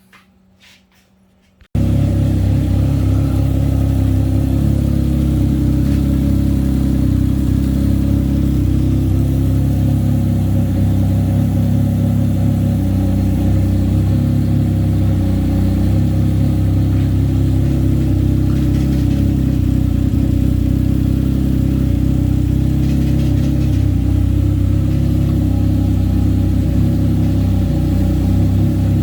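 Can-Am Ryker engine idling steadily, coming in abruptly about two seconds in after a couple of faint clicks.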